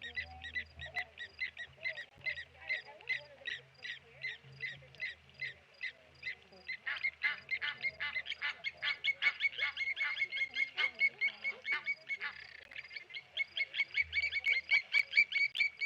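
Blacksmith lapwings giving their sharp, metallic 'tink' alarm calls over and over while mobbing a tawny eagle. The calls come about three a second at first, then grow faster and louder from about seven seconds in.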